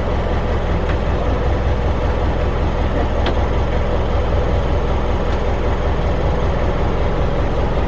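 Narrowboat's diesel engine running steadily, a continuous low drone.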